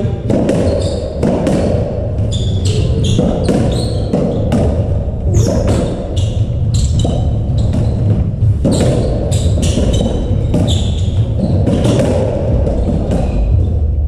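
Racketball rally: the ball is struck by rackets and hits the court walls again and again, with sharp smacks echoing in the enclosed court. Short high squeaks of players' shoes on the wooden floor come between the strikes.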